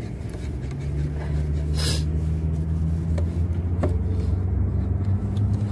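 Steady low drone of a vehicle engine running nearby, setting in about half a second in. Over it come a brief rustle and a couple of light clicks from a spoon stirring a paper cup.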